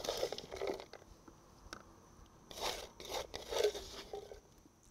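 Prepared shellfish being scraped out of a woven wooden bowl onto a mixed salad in another wooden bowl: several short, crunchy rustling scrapes with quiet gaps between them.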